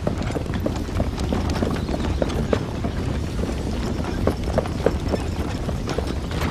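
Horses' hooves clopping on dry ground: many irregular knocks from several horses over a steady low rumble.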